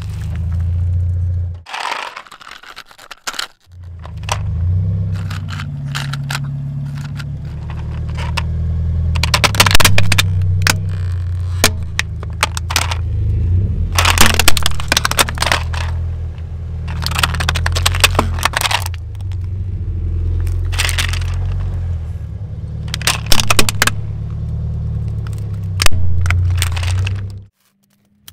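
A car tyre rolling slowly over objects and crushing them, first soft bananas and then a plastic toy car, with many sharp cracks and crunches over the low running of the car's engine.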